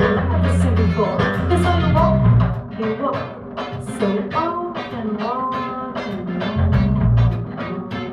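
Live band music with heavy bass notes and drums on a steady beat.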